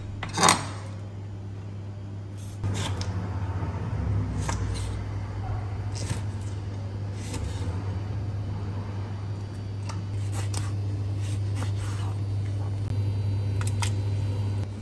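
Kitchen knife cutting vegetables on a wooden end-grain cutting board: scattered single knocks of the blade on the board over a steady low hum.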